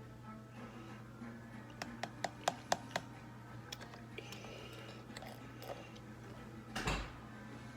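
Drinking the last of a plastic bottle of Coke: a quick run of about five sharp clicks about two to three seconds in, then a short, louder noisy sound near the end, over a steady low hum.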